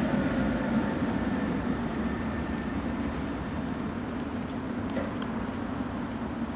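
Two-car Tatra T3 tram set running along the tracks and moving away. A steady rumble with a faint motor whine slowly fades.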